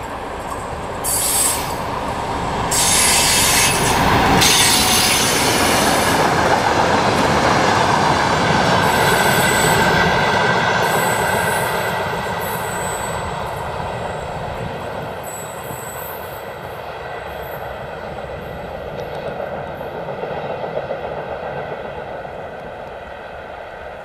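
DR1A diesel multiple unit passing: engine and wheels running on the rails, with high-pitched wheel squeal from the curve coming in bursts. It gets louder over the first few seconds, then fades as the train moves away.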